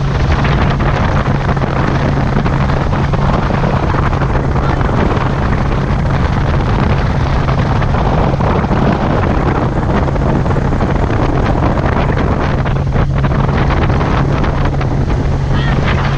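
Outboard motor of a passenger boat running steadily at speed, a constant low hum, with wind buffeting the microphone and water rushing past the hull.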